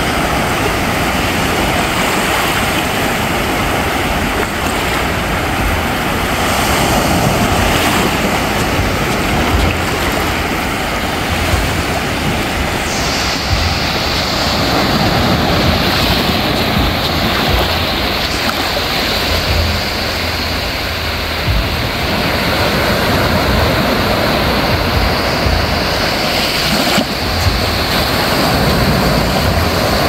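Small sea waves lapping and washing up a sandy shore: a steady hiss of surf with a low, uneven rumble underneath.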